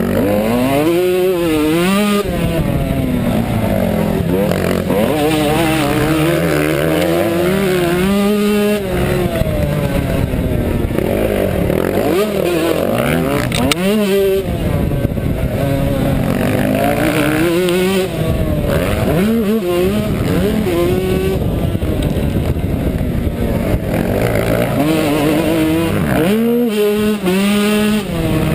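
Yamaha YZ125 two-stroke motocross engine heard from on board the bike, its pitch repeatedly climbing under throttle and dropping off as the rider shifts and brakes through the turns.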